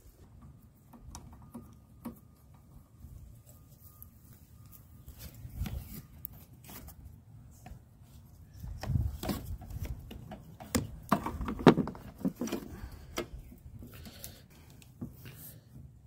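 Scattered clicks and knocks of a push mower's plastic and metal parts being handled as its handle and control cable are moved into place, sparse at first and busier from about halfway on.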